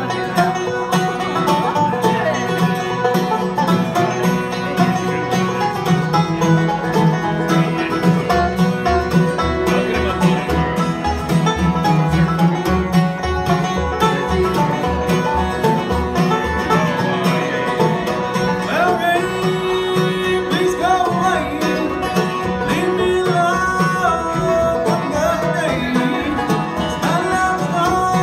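Live acoustic bluegrass band playing an upbeat tune: five-string banjo rolls, mandolin, dobro and flatpicked acoustic guitar with a bouncing bass line.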